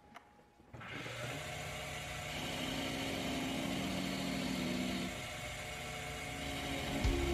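Wood lathe switching on about a second in and running steadily with a motor whine, as a turning chisel cuts the spinning poplar blank. A heavier low knocking starts near the end.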